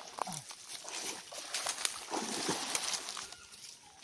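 Muddy pond water sloshing and splashing irregularly as two people wade through it, dragging a seine net along the bottom.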